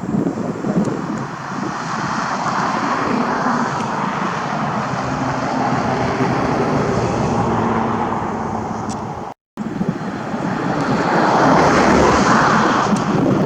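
Passing motor vehicles: a steady rush of engine and road noise that swells and fades twice, louder the second time. It breaks off completely for a split second just past halfway.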